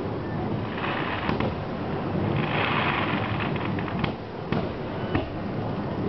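Aerial fireworks going off: a few sharp bangs and a spell of dense crackling near the middle, over a continuous low rumble.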